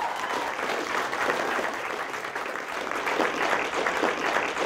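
Audience applauding, a dense steady clatter of many hands clapping, with a few voices calling out among it.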